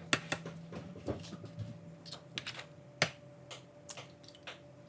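Eggs being tapped and cracked against the rim of a bowl: a scatter of sharp clicks and knocks, the loudest about three seconds in, over a faint steady hum.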